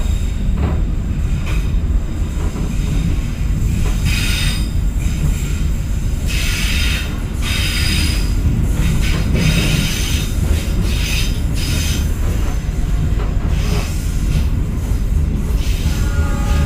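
Passenger train coaches rolling along the rails as the train pulls out of a station, heard from the rear of the last coach: a steady low rumble with several bursts of high-pitched wheel screech and hiss through the middle.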